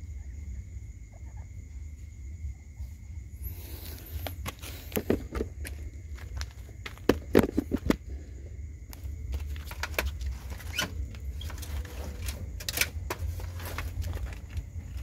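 Handling noise at a chicken-wire cage: rustling and a string of sharp clicks and knocks, starting a few seconds in and loudest about halfway through, over a steady low rumble.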